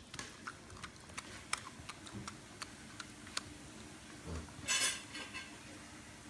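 A basenji crunching a raw carrot: irregular sharp crunches and clicks, with a short, louder noisy burst about three-quarters through.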